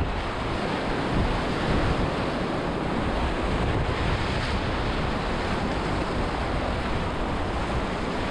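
Whitewater rapids rushing and splashing around a kayak, heard up close from a camera on the paddler, with wind buffeting the microphone as a low rumble.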